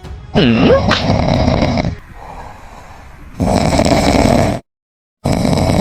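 A person snoring loudly: three long, rough snores of a second or more each, the first with a wavering, sliding pitch.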